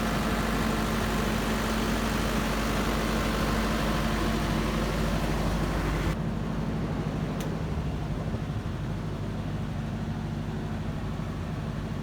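Perkins diesel engine of a 110 kVA Bruno generator set running steadily at constant speed. About halfway through, the sound abruptly turns duller and a little quieter while the engine keeps running.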